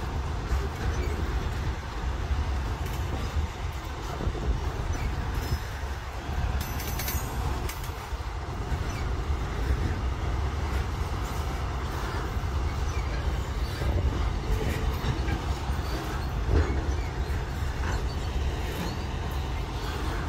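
Train running on the rails: a steady low rumble with scattered clicks.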